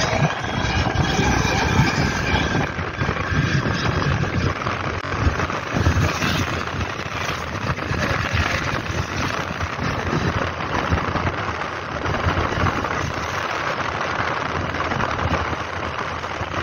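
Steady engine and road noise from a moving vehicle, with wind buffeting the microphone.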